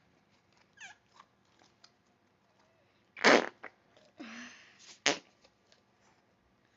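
Fidget toys squeezed to make fart-like noises: a short falling squeak about a second in, then a loud puff about three seconds in, a longer rougher one, and a short sharp one just after five seconds.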